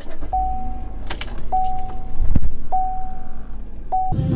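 A Chevrolet SUV's dashboard warning chime sounds four times, a single tone about every 1.2 s, while the instrument cluster shows a Service StabiliTrak warning. Underneath is the low rumble of the moving vehicle, with a brief jingle of keys about a second in.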